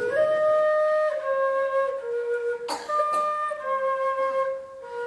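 A woodwind instrument, flute-like, playing a slow improvised melody: held single notes of about a second each, stepping gently up and down, with a short click about halfway through.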